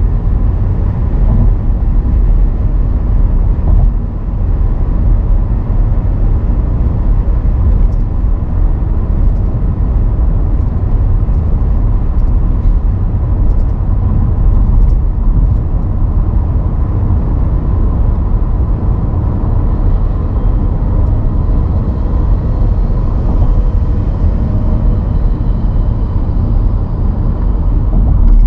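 A car driving on city streets: a steady, loud low rumble of road and engine noise.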